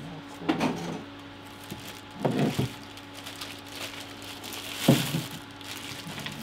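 Plastic wrapping crinkling and rustling, with a few knocks, as a plastic-bagged liquid-cooler radiator is handled and lifted from its packaging; three separate bouts of noise, the sharpest knock about five seconds in.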